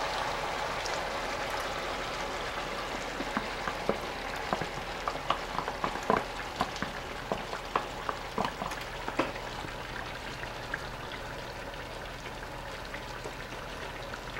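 A pan of chicken, onions, white wine and crushed tomatoes sizzling steadily on high heat, with irregular sharp taps and pops over the hiss, most of them between about four and nine seconds in.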